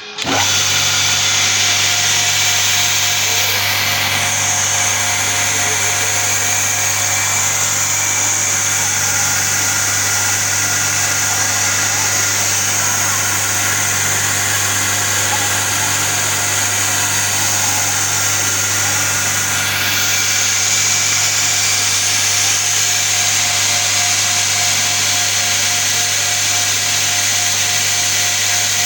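Homemade 2x72 belt grinder running steadily: a low motor hum under a bright hiss from the abrasive belt. It comes in abruptly at the start, and the high hiss briefly changes twice, about 4 and 20 seconds in.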